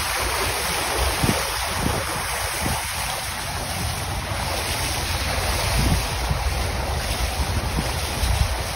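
Wind buffeting a phone's microphone on a pickup truck moving through floodwater, over a steady low rumble with a few brief low thumps.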